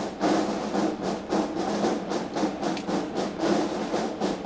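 Military brass band playing a march, with steady held chords and quick, regular drum beats.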